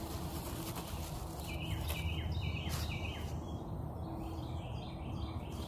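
A bird chirping repeatedly in quick series of short high notes, over a steady low background rumble, with a couple of brief clicks about two and three seconds in.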